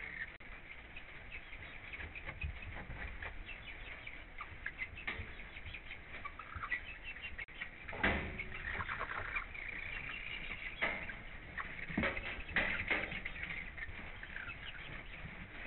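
Hens in a coop clucking and trilling softly, with scattered clicks of pecking and scratching in the litter. A few louder knocks come about halfway through and again a few seconds later.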